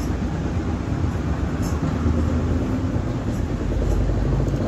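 Hyundai Grand i10 engine idling steadily while running with its crankshaft position sensor removed.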